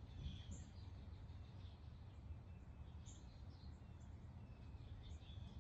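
Near silence: faint outdoor ambience, a low steady rumble with a few soft, scattered bird chirps.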